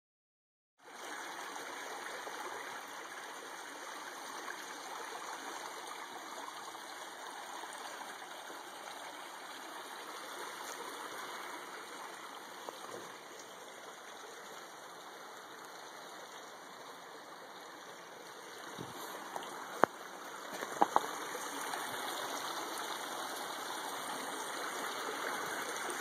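Shallow creek water running and trickling over rocks: a steady rush that starts about a second in. A few sharp knocks sound a little past two-thirds of the way through.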